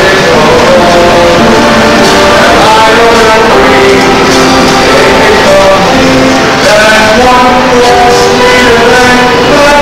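Loud music from a stage musical's pit orchestra, held notes moving through a melody.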